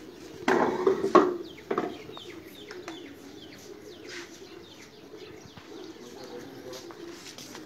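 Domestic pigeons cooing in a loft, a steady low warble throughout. A loud burst of noise comes about half a second in, with another shortly before two seconds, then a string of short, high, falling chirps.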